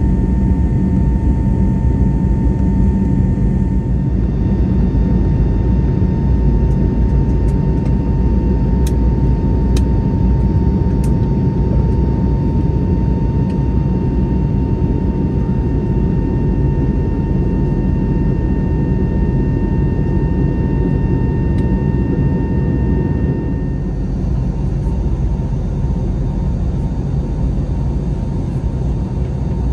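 Steady in-flight cabin noise of an Airbus A321neo: a deep rumble of airflow and its Pratt & Whitney PW1100G geared turbofan engines, with a few steady high tones humming over it. A few faint clicks come about ten seconds in, and the noise eases slightly a little before the end.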